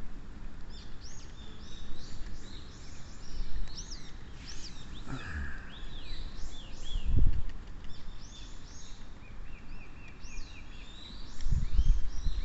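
Several songbirds calling and singing over one another, with high repeated chirps and sliding whistled notes, including a quick run of short notes about ten seconds in. A low rumble comes about seven seconds in and again near the end.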